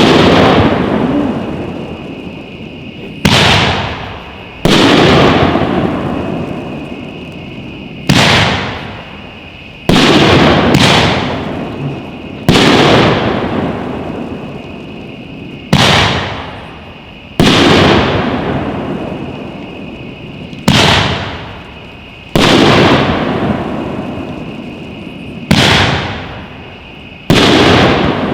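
Aerial shells from a 9-shot, 2-inch Nishiki (brocade) firework cake bursting: about a dozen sharp, loud bangs a second or two apart, each trailing off.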